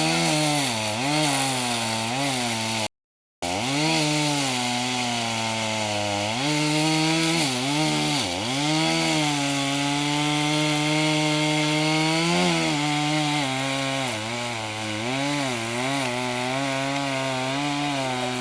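Chainsaw running and cutting wood, its engine pitch dipping and recovering again and again as it bites, with a steadier stretch in the middle. The sound cuts out completely for about half a second some three seconds in.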